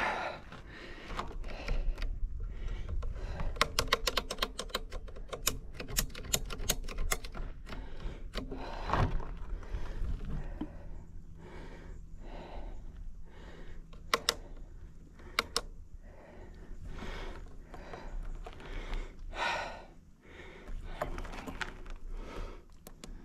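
Mountain bike ridden over a rough dirt trail: a steady rumble of tyres and ground, with scattered clicks and rattles and a fast, even run of ticking from about three to seven seconds in.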